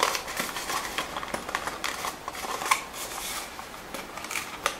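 Cardboard gift box being closed by hand: flaps scraping and rustling as they are folded and tucked into slits, with small scattered clicks and a sharper click near the end.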